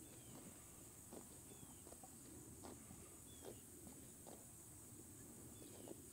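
Near silence: a faint, steady, high-pitched insect drone, with scattered soft ticks and a few faint short falling chirps.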